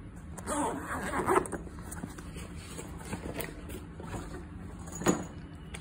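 Zip on a Fluke multimeter's soft carry case being pulled open about half a second in, then fabric rustling and light clicks as the meter and its test leads are handled. A sharp knock comes near the end.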